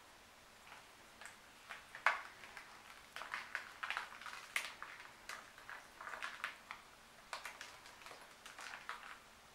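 Faint, irregular ticks and taps as a vinyl record coated in wet acrylic pour paint is tilted and turned in plastic-gloved hands, the sharpest tap about two seconds in.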